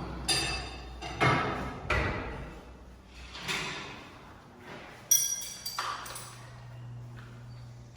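Metal hardware knocking and clinking, five or six separate strikes with a short ringing after each, the sharpest about five seconds in. A steady low hum follows for the last few seconds.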